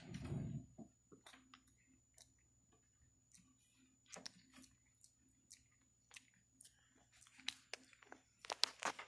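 Java macaque grooming a person's hair close to the microphone: scattered small crackles and clicks as it picks through the hair. There is a soft bump of movement at the start and a quick run of louder clicks near the end as the monkey brushes against the phone.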